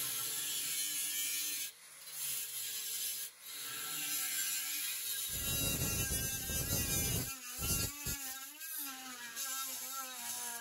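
A corded Mastercraft angle grinder runs and cuts into the bicycle frame to notch it. It makes a steady whirring hiss, and its motor pitch wavers from about three-quarters of the way through.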